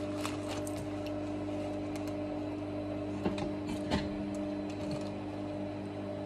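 Motor of an industrial Singer sewing machine humming steadily at idle, not yet stitching. A few soft knocks and rustles of leather being handled under the presser foot come about three and four seconds in.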